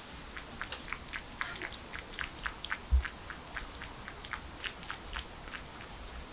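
Kitten lapping water from a stainless-steel bowl: a quick run of small wet clicks, about four a second. One low thump about three seconds in.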